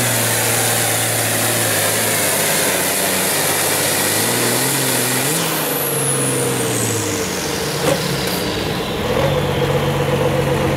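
International Harvester farm tractor's diesel engine running hard under full load while pulling a sled, then throttled back about seven seconds in as a high whine falls away in pitch. A single sharp click follows, and the engine settles to a lower, steady run.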